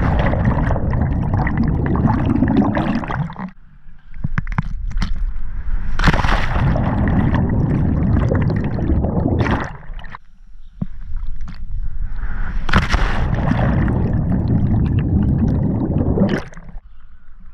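Three water entries: each starts with a sharp splash, followed by a few seconds of loud rushing and gurgling water around the camera as it goes under, then a short quieter gap.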